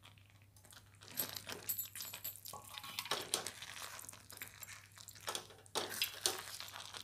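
A spatula stirring grated beetroot into thick, cooking milk in a steel kadhai, with irregular scrapes and clicks against the pan starting about a second in.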